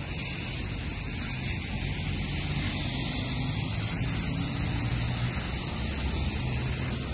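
Road traffic on a wet street: a steady hiss of tyres with a low engine hum, swelling a little towards the middle.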